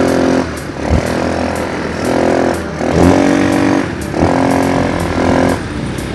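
ATV engine revving up and easing off again and again, the throttle opened in short pulls of about a second each, with a thump about a second in.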